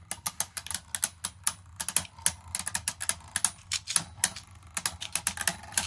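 Two Beyblade Burst tops, a Hasbro Quad Drive Vanish Fafnir F7 with an all-plastic, rubberless attack ring and a Takara Tomy Pegasus, spinning together in a plastic stadium and knocking into each other. The contacts make a rapid, irregular run of sharp clicks, several a second.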